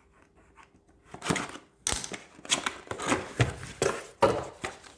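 Cardboard box and packing being handled and opened: a run of scrapes, rustles and sharp knocks starting about a second in.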